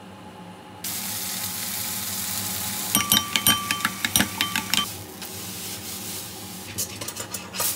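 Enoki mushrooms and green onion sizzling in a frying pan. About three seconds in, a spoon beats eggs in a glass bowl for nearly two seconds, with quick clinks that ring against the glass. A few more clinks come near the end.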